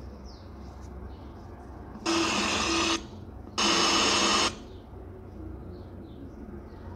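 Xtrad MS-302BT portable Bluetooth speaker's FM radio auto-scanning for stations: two loud bursts of static hiss, each just under a second, about two and three and a half seconds in, with a low hum under the hiss.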